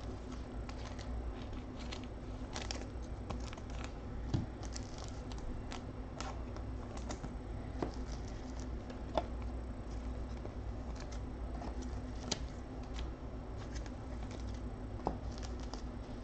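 Scattered light clicks, taps and faint rustles from hands handling things at a desk, over a steady low hum, with a slightly louder tap about four seconds in and another about nine seconds in.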